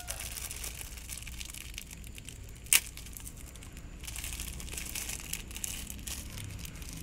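Thin wrapper of a pack of pop-pop snappers crinkling and rustling as fingers work it open. One sharp crack stands out about three seconds in.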